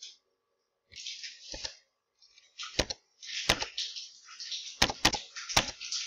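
Rustling noise broken by about six sharp clicks or cracks, with a stretch of rustling about a second in and a longer one from about three seconds in.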